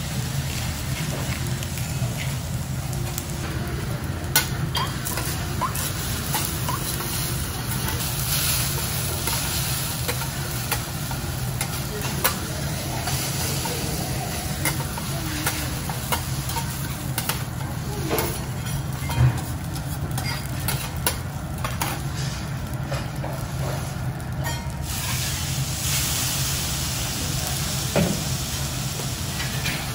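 Fried rice sizzling on a steel teppanyaki griddle, with a few sharp clicks of metal spatulas against the plate.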